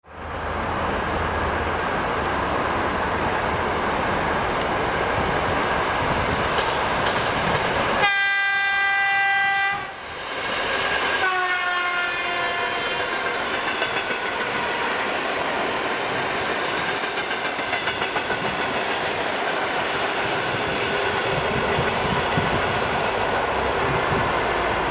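EP2D electric multiple unit passing at speed, with a steady rumble and clatter of wheels on the rails. About eight seconds in its horn sounds twice: a steady blast of about two seconds, then after a short break a second blast that falls in pitch as the train goes by. The rumble carries on as the train moves away.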